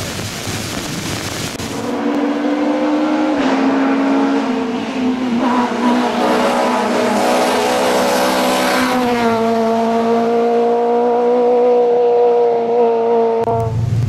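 A Citroën C2 rally car's four-cylinder engine is worked hard at high revs on a hill-climb run. Its pitch shifts at a few points and is then held steady before cutting off suddenly near the end. For the first couple of seconds only a steady rushing noise is heard.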